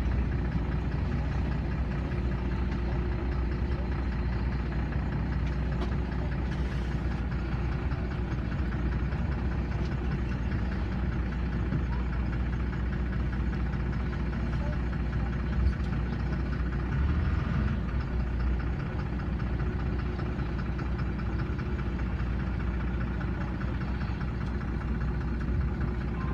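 LiAZ 5292.21 city bus under way, heard from inside the cabin: steady engine drone and low road rumble, with a single sharp thump a little past halfway.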